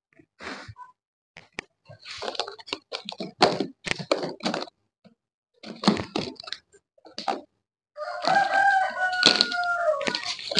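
Clattering knocks of rabbits being handled and set into plastic baskets, with scrabbling against the plastic. Near the end a rooster crows once, a long call of about two and a half seconds that sinks slightly in pitch.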